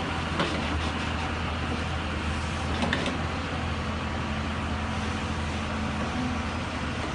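Hyundai crawler excavator's diesel engine running steadily under hydraulic load as its forestry grapple swings a bundle of logs, with a couple of sharp knocks near the start and about three seconds in.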